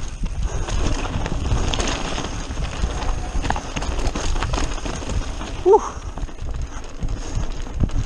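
Mountain bike descending fast over a loose rocky trail: tyres crunching on gravel and stones, the bike rattling with a rapid run of knocks and clicks, and wind buffeting the camera microphone. A brief rising cry from a rider about six seconds in.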